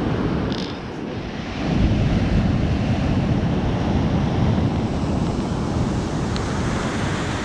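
Ocean surf breaking and washing in, with wind buffeting the microphone; the rush of water swells up about a second and a half in.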